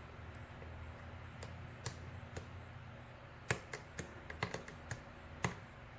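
Light metallic clicks and ticks of a lock pick working the pins of a padlock held under tension, scattered at first and then a quicker run of clicks in the second half, over a faint steady low hum.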